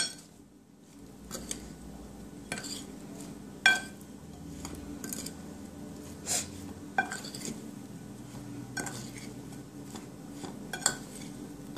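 A spoon stirring raw prawns coated in curry powder and seasoning around a glass bowl, with irregular clinks and taps of the spoon against the glass.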